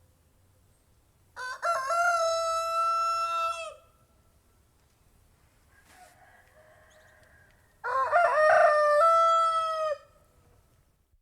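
Domestic rooster crowing twice, each crow about two seconds long: a short rising start, then a long held note that drops off at the end.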